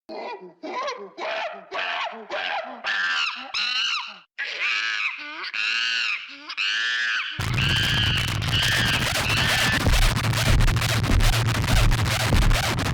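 A run of hooting calls, each rising in pitch, coming quicker and climbing higher until they break into high screams, in the manner of a chimpanzee pant-hoot. About seven seconds in, music with a heavy bass beat comes in under the last few screams.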